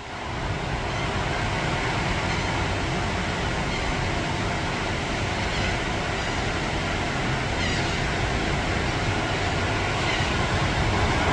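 Steady roar of ocean surf with wind, a continuous noisy wash with a deep rumble, fading in over the first second.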